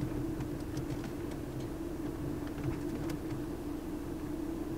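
Steady low drone of a car running, heard inside the cabin, with a few faint clicks.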